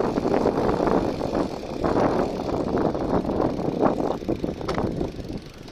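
Riding noise from a bicycle rolling over rough, patched asphalt, picked up by a phone mounted at the front of the bike. It is a steady rumble of wind and road, with irregular rattling jolts.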